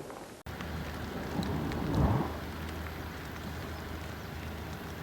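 Wind rumbling on the microphone over a steady hiss, swelling into a strong gust about two seconds in.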